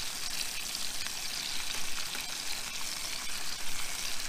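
Bacon sizzling in a frying pan on a Coleman camping stove: a steady hiss as the rashers are turned with metal tongs.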